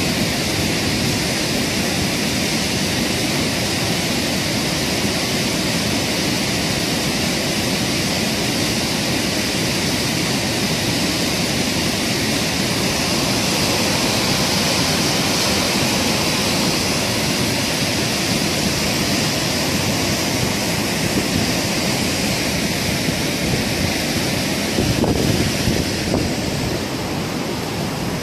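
Fast, muddy floodwater rushing loudly and steadily, churning and foaming as it surges past concrete pillars. A brief knock stands out near the end.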